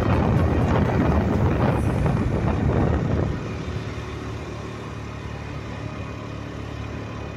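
Motor scooter running along a road, with wind buffeting the microphone loudly until about three seconds in, then easing to a steadier, quieter engine hum.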